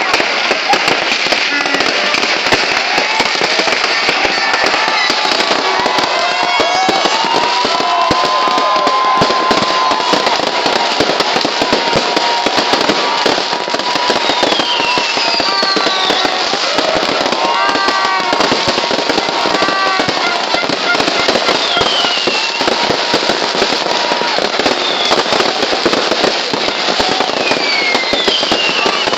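Many fireworks and firecrackers going off at once in a dense, unbroken crackle, with several falling whistles and some held whistling tones through it.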